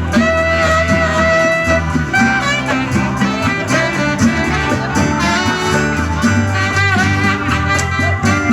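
Live band playing an instrumental passage: a steady bass line under held higher notes, with no singing.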